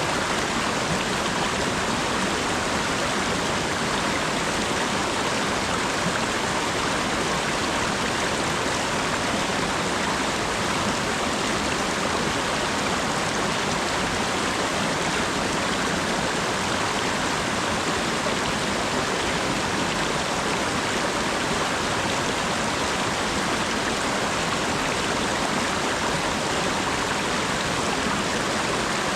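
Steady rain falling, an even, unbroken hiss with no change.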